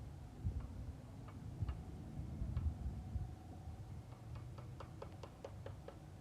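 Sharp clicks and low knocks from hands and tools working on metal: a few scattered clicks at first, then a quick run of about eight clicks with a slight ring near the end.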